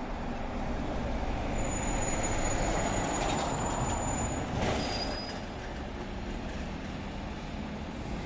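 Street traffic below a window: a vehicle passes, its rush swelling and easing off, with a thin, steady high-pitched squeal for about three seconds as it goes by.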